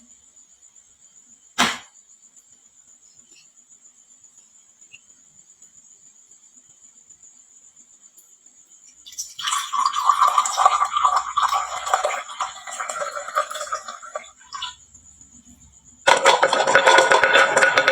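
Glass marbles clattering and rattling down a wooden marble-run slope, a dense run of small hard clicks. The clatter stops briefly, then comes back louder and continuous near the end. There is a single sharp click early on, and a steady high insect-like chirring in the background during the first half.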